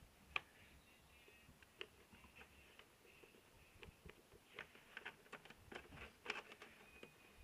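Near silence with faint scattered clicks and light taps, more of them from about four and a half to six and a half seconds in.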